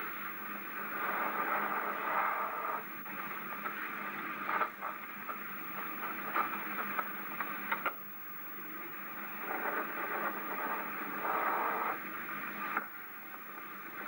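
Steady muffled hiss with scattered clicks and crackles, the surface noise of a worn copy of an old film soundtrack. The hiss grows and fades in patches.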